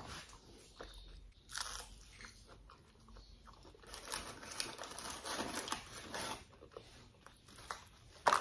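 A person chewing and biting a chicken nugget close to the microphone, with irregular short crackles of chewing. Near the end there is one sharp knock, the loudest sound.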